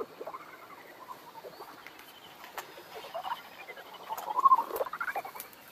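Bat detector playing a lesser horseshoe bat's echolocation calls as the bat flies around close by: runs of rapid chirping pulses that rise and fall in pitch, loudest about four and a half seconds in.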